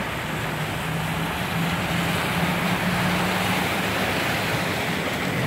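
A tow truck driving past through deep floodwater: a steady engine hum under the rush of water thrown up by its wheels, swelling toward the middle.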